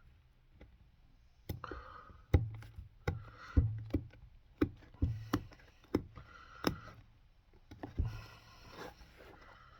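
A series of about a dozen sharp, irregular knocks and taps during boot-resoling work, the loudest a little over two seconds in and again around three and a half seconds, stopping a little after eight seconds.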